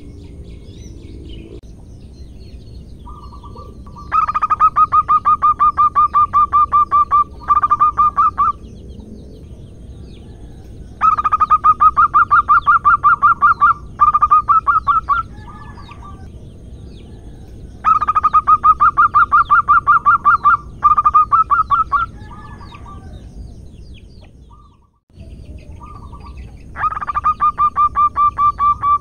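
Zebra dove (perkutut) singing: four bouts of its fast staccato cooing, each a rapid run of about seven notes a second followed by a few shorter runs, with pauses of a few seconds between bouts.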